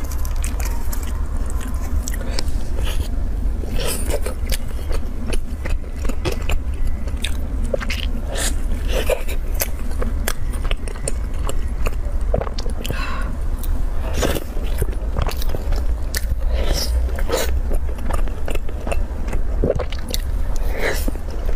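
Close-miked eating sounds: a soft, cream-filled chilled bun torn apart, bitten and chewed, with many short wet mouth clicks and smacks. A steady low hum runs underneath.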